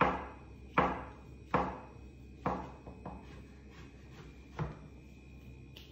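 Kitchen knife slicing button mushrooms on a plastic cutting board: a series of sharp knocks as the blade hits the board, about one every second, the last ones further apart.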